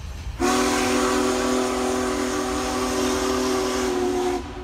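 Steam locomotive whistle: one long blast of about four seconds, several tones sounding together as a chord with hiss over them, starting and stopping sharply. A passing train rumbles low underneath.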